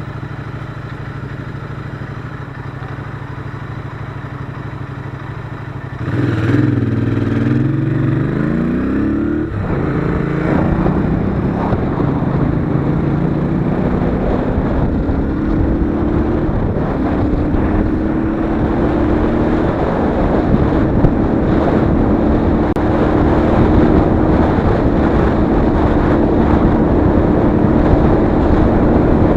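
Royal Enfield Interceptor 650's parallel-twin engine running steadily at low revs. About six seconds in it opens up and accelerates, the pitch rising through the gears with two shifts, then settles into a steady cruise with growing wind and road noise.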